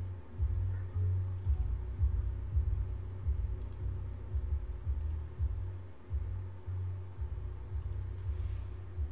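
Scattered computer keyboard keystrokes, a few clicks at a time with gaps between them, over a loud, uneven low rumble and a faint steady hum.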